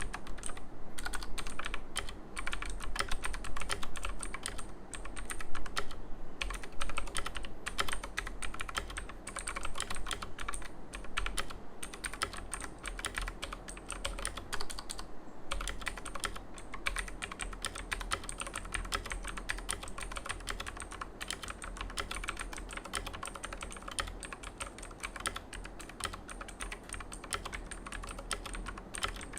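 Fast continuous typing on a mechanical keyboard with clicky Outemu Blue switches: dense, sharp clicks with a brief pause about halfway through.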